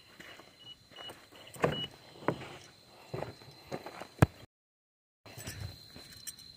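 A car door being handled: a few knocks and clunks, the sharpest a click about four seconds in, after which the sound cuts out for under a second.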